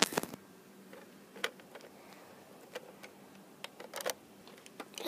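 Scattered short clicks and light knocks from a hand handling a Nerf Alpha Trooper CS-12 toy blaster. The loudest comes right at the start and a small cluster comes about four seconds in.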